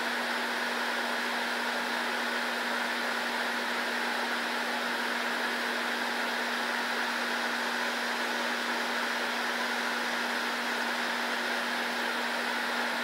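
Steady fan noise: an even hiss with a constant low hum underneath.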